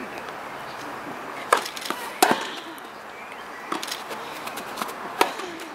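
Tennis rackets striking the ball during a rally: four sharp pops, the first two loudest and close together, then two more about a second and a half apart, over steady background noise.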